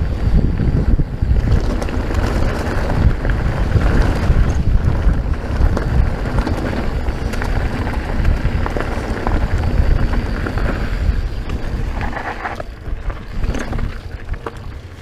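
Strong wind buffeting the microphone as a mountain bike is ridden down a dirt trail, with small clicks and rattles running through it; it eases off near the end.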